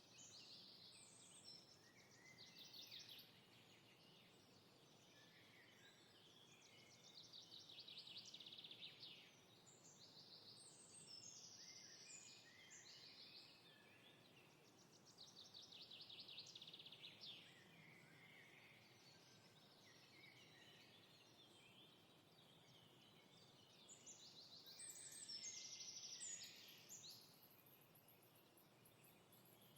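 Faint chorus of several songbirds calling and singing, with stretches of fast trills that swell and fade every several seconds over a soft steady hiss.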